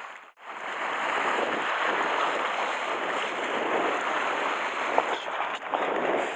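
Sea surf washing and foaming over shore rocks, a steady rushing hiss. It drops out briefly near the start, and a single sharp tap sounds about five seconds in.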